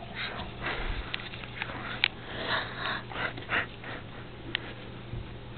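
Golden retriever puppy sniffing close to the microphone: a series of short, quick sniffs that die away about four seconds in.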